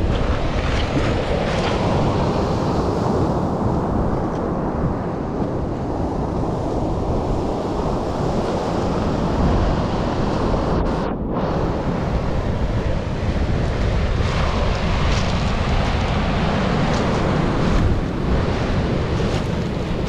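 Rough sea surf breaking and washing up a pebble beach in a continuous, loud rush, with wind buffeting the microphone and adding a low rumble.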